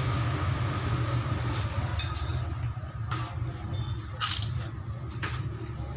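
A steady low rumble with a few short clicks and scrapes of a metal spoon on a china plate as someone eats, the sharpest one about four seconds in.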